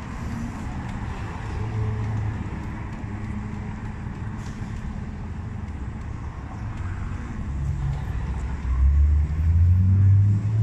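Low, steady rumble of road traffic, growing louder near the end as a vehicle drones past.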